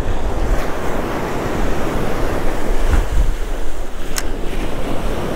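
Surf washing onto the beach, with wind buffeting the microphone in a heavy low rumble. A brief sharp click about four seconds in.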